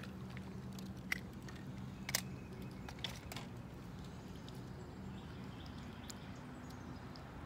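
Fishing rod and reel being handled: a few scattered sharp clicks and taps over a low steady hum.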